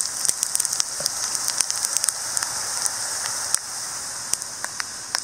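Coriander seeds frying in hot oil in a kadai: a steady sizzling hiss with many sharp crackling pops, easing a little after about three and a half seconds.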